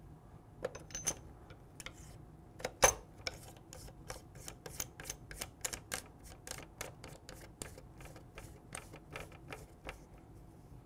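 Light, irregular clicking of an AR-7 survival rifle's knurled barrel nut being turned by hand onto the action's threads, a few clicks a second, with one louder click about three seconds in.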